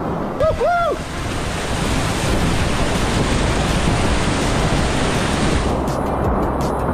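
Whitewater rapids rushing loudly around a kayak, growing louder and hissier with splashing from about two seconds in and easing a little near the end. About half a second in, a voice gives two short rising-and-falling shouts.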